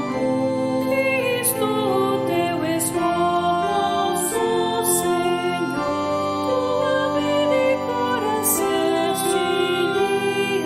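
A hymn sung by voices over a sustained organ-like keyboard accompaniment.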